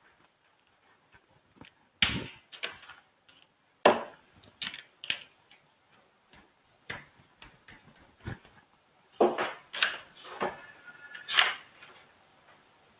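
Irregular taps and short scratching strokes of someone writing, in bunches around two, four to five, and nine to eleven seconds in.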